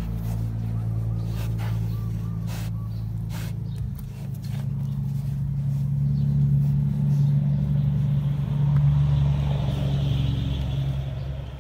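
A motor engine running steadily, a deep hum that steps up in pitch about four seconds in, with a few light clicks in the first half.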